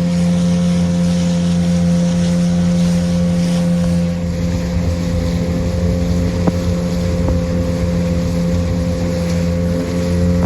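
Small motorboat's engine running at a steady cruising speed while under way, a constant hum with an unchanging pitch.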